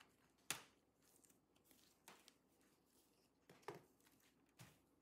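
Faint, sharp plastic clicks, the loudest about half a second in and more around two, three and a half and four and a half seconds: the bottom cover clips of an MSI Titan 18 HX laptop snapping free as a thin plastic pry tool works along the edge.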